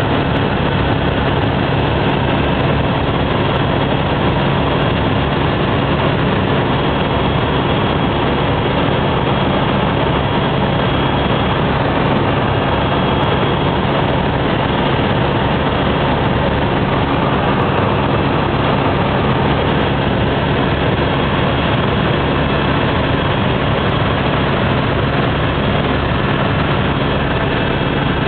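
Helicopter in flight heard from inside the cabin: loud, steady engine and rotor noise with a low, even drone that does not change.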